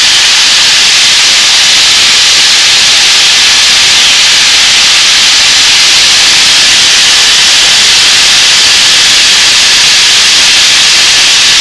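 Steady cockpit noise of a Europa XS in cruise flight: its six-cylinder Jabiru engine and propeller running, under a loud, even rush of air, heard from inside the cabin.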